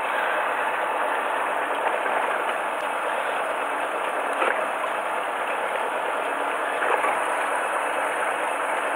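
Fishing boat's engine running steadily under an even wash of noise, with a few faint knocks.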